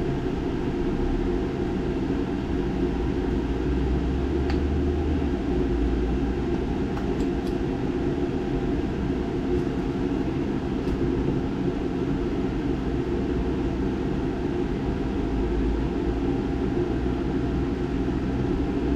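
Steady low machine hum, with a few faint light clicks in the middle of the stretch.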